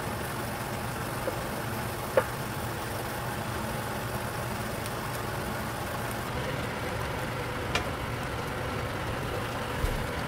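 A steady low mechanical hum in a kitchen, with three light clicks: about two seconds in, near eight seconds, and just before the end.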